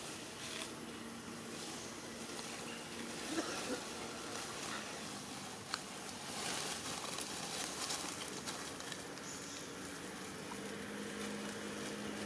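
Dry leaf litter rustling and crackling under a long-tailed macaque's steps, with a few faint sharp clicks, over an even outdoor background. A low steady hum comes in near the end.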